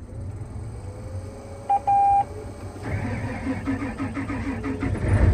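John Deere 8335R tractor being started from the cab with the ignition key: two short warning beeps, the second longer, then the starter cranking the six-cylinder diesel in a quick rhythmic chug, with the engine rumble building as it catches near the end.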